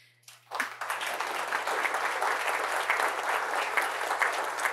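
Audience applauding: a dense crowd of hand claps that begins about half a second in and keeps up steadily.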